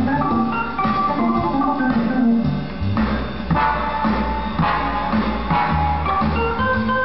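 Jazz played on a Hammond organ: sustained, chording organ lines over a low, pulsing bass line, from a 1964 studio recording.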